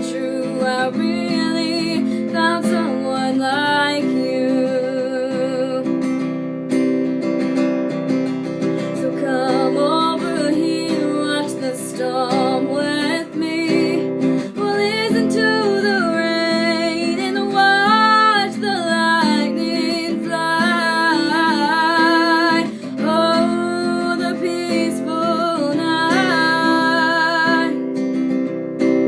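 Acoustic guitar strummed under a woman's voice singing held, wavering notes with no clear words.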